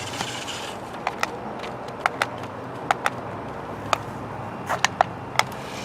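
Battery-powered RC stunt car being driven, its electric motors giving a steady low hum with a faint whine at the start. About a dozen sharp clicks and knocks come at irregular moments, as the plastic car jolts and tumbles.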